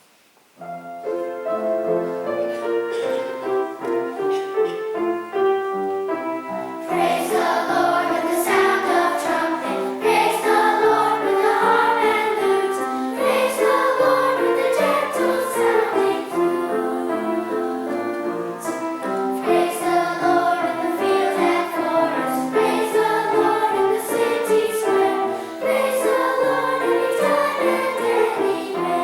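A piano introduction starts just under a second in, and from about seven seconds in a children's choir sings over the piano accompaniment.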